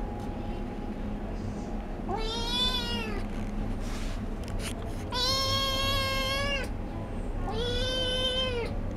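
A kitten meowing three times, long drawn-out calls that rise then fall in pitch, the middle one the longest. These are insistent calls from a kitten wanting to get up where it can't reach.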